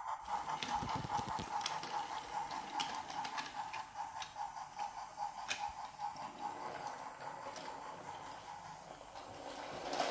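Battery-powered toy train running along wooden track: a steady whirring motor with a fast rhythmic ticking, and scattered sharp clicks as it rolls over the track.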